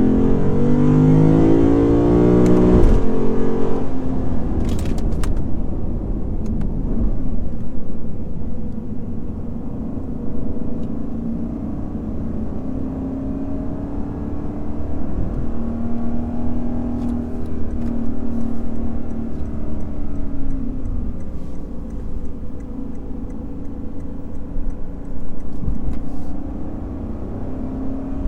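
Lexus IS500 F Sport Performance's naturally aspirated 5.0-litre V8 accelerating, its note rising for about three seconds before dropping suddenly at a shift or lift, then running more steadily over road and tyre noise, swelling again about halfway through.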